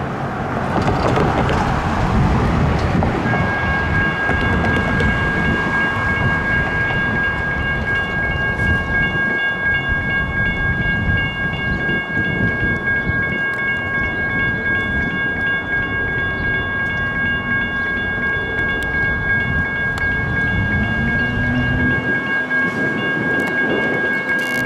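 A light rail train rumbling along the track with wheel and rail noise. A railroad crossing bell starts ringing steadily about three seconds in, and near the end a low whine rises in pitch as the train moves.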